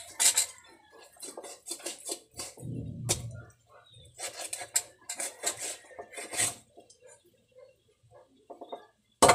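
Large knife cutting and hacking through a whole grouper on a wooden chopping block: irregular sharp knocks and scrapes of the blade against the fish and the board. There is a dull thud about three seconds in and a single hard strike near the end.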